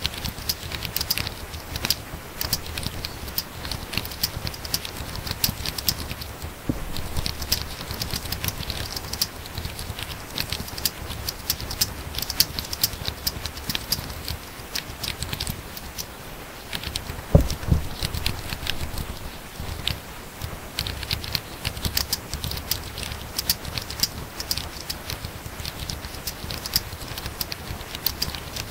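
Very fast typing on a laptop keyboard: a dense, continuous patter of key clicks, with one louder, deeper knock about two-thirds of the way in.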